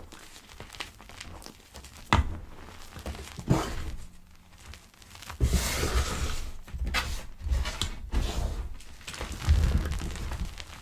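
Pebbles of gym chalk being crushed: irregular soft crunches and crackles with low thuds, and a longer stretch of crumbling about halfway through.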